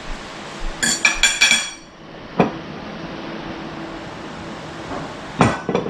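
Tableware clinking against a plate: a quick run of about four ringing clinks about a second in, then a single sharp knock, and a heavier knock near the end.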